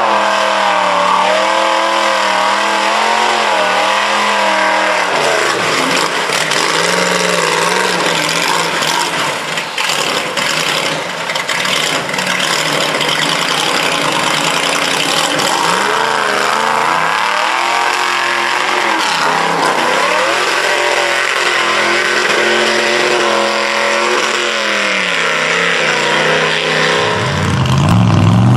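A mud-bog truck's engine revving hard, its pitch climbing and dropping again and again. The sound grows louder near the end.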